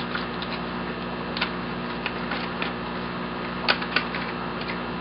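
A few light clicks and crinkles of a small plastic packet being handled, the clearest about a second and a half in and twice close together near four seconds, over a steady low electrical hum.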